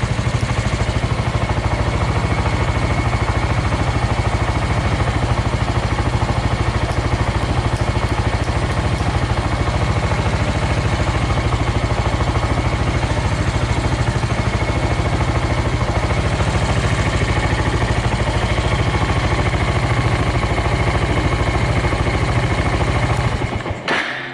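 Suzuki Volty's single-cylinder four-stroke engine idling steadily with an even beat and no abnormal noises. It is shut off near the end and dies away.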